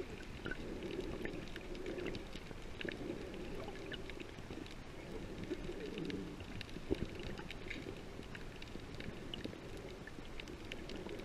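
Underwater ambience heard through a submerged camera: a steady muffled water rumble, flecked with scattered faint clicks and crackles and a few sharper ticks.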